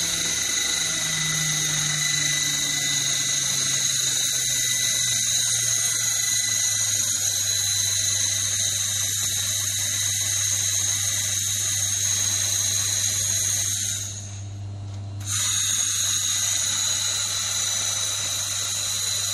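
Handheld laser cleaning gun ablating rust from a steel plate: a steady high-pitched whine over a hiss, with a low hum underneath. About fourteen seconds in, the whine and hiss stop for roughly a second and then resume.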